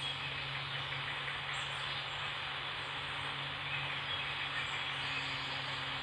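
Car driving on a wet road, heard from inside the cabin: a steady hiss from the wet road and rain, with a low engine hum beneath.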